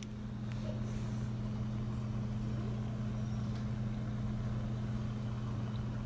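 A steady low hum with a light hiss behind it, unchanging throughout.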